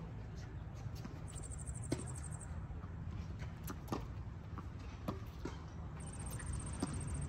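Tennis ball being hit back and forth on a hard court: sharp pops of racket strikes and ball bounces every second or so, the loudest about two seconds in, over a steady low rumble. A short high chirping trill comes twice, once early and once near the end.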